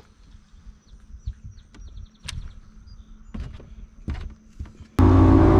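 A few soft ticks and sharp knocks as a rod is cast and the lure worked from a bass boat's deck. About five seconds in it cuts suddenly to the loud, steady noise of the bass boat running at speed: outboard engine and wind.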